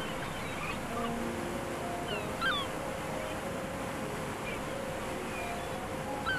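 Gulls calling with short, gliding mewing cries, a clear one about two and a half seconds in and another at the very end, over a steady rushing background.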